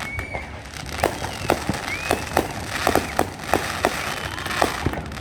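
Fireworks and firecrackers popping in quick, irregular succession, about a dozen sharp bangs.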